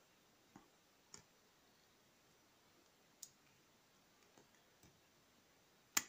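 Faint, irregular clicks of a pick and tension wrench working the pin tumblers inside a cheap four-pin padlock, with a sharper click at the very end.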